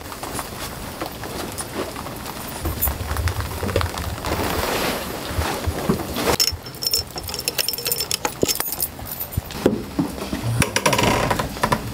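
Irregular clinks and knocks of metal tools and fittings being handled, with scattered knocks and rustling as the crew move about the wooden deck.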